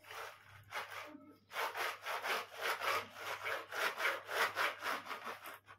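Rapid back-and-forth scraping strokes, something rubbed or pushed over a hard surface. A few slow strokes come first, then from about a second and a half in they quicken to about four a second.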